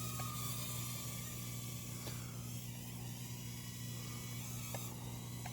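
Small toy quadcopter drone buzzing in flight, its propellers giving a steady whine over a low hum, with a few faint ticks.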